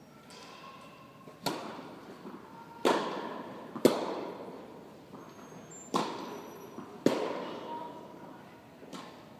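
Tennis balls being struck with rackets and bouncing on the court: six sharp pops spaced one to two seconds apart, each followed by a long echo in a large indoor tennis hall.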